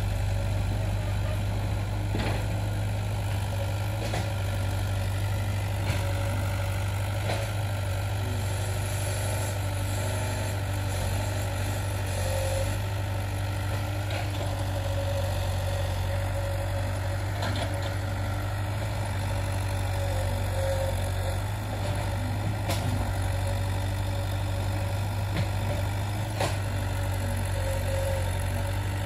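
Diesel engine of a tracked excavator running steadily with a low hum, with a few short knocks now and then.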